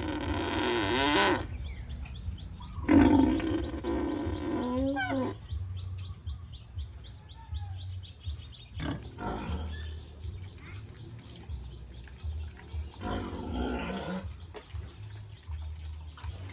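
Pigs squealing: four long, wavering calls, the first two the loudest, over a low steady hum.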